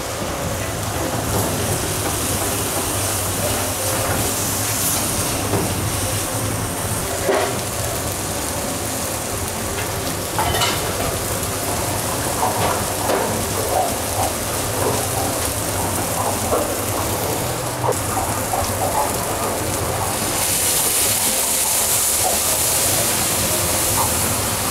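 Rice and vegetables frying in a cast-iron pan over a gas flame: a steady sizzle with short scrapes of a spatula stirring. Near the end liquid is poured into the hot pan and the sizzle turns louder and hissier.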